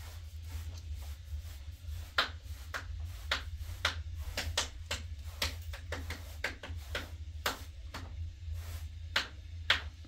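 Irregular sharp taps and clicks, about one or two a second, over a steady low hum.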